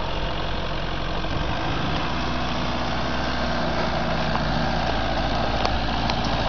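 Mitsubishi L200 pickup's engine idling steadily, with a few faint clicks near the end.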